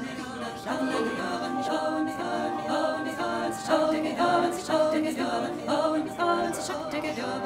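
Unaccompanied choir singing, with several voices holding notes that change about every half second.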